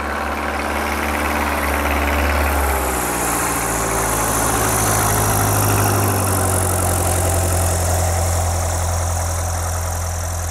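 Cessna 170B's piston engine and propeller running at high power as the tailwheel plane rolls over snow. The engine note steps up in pitch about three seconds in and is loudest around the middle, as the plane passes close.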